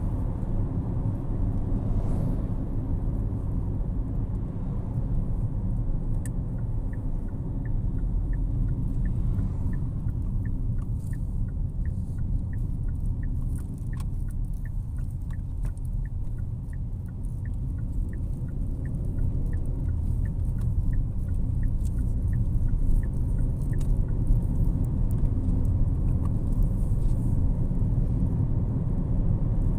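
Steady low road and engine rumble inside a moving car's cabin, easing a little midway and building again afterwards. For much of the middle, the turn-signal indicator ticks at about two ticks a second while the car takes a roundabout.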